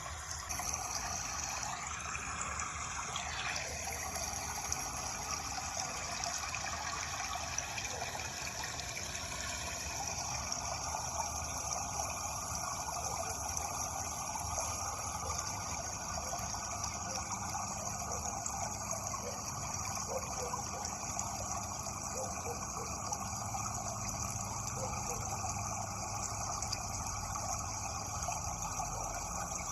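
Steady flowing water, a continuous even rush with no breaks.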